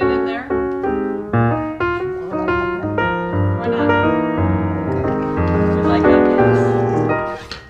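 Background music led by piano, a steady run of notes over a bass line, fading briefly near the end.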